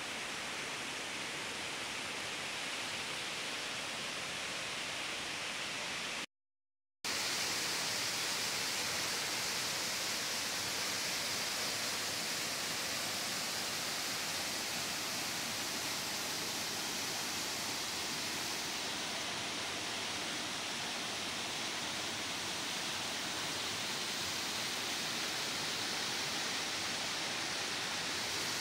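Swollen river in flood after constant rains, its muddy water rushing steadily. The sound cuts out briefly about six seconds in, then comes back slightly louder and brighter.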